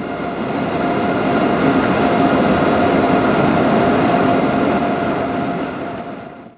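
ÖBB EuroNight sleeper train running alongside a station platform: a loud, steady rail rumble with a faint steady tone over it, fading out near the end.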